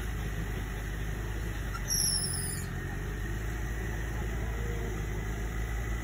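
Off-road vehicle engine idling with a steady low rumble, broken about two seconds in by a brief high, falling squeal.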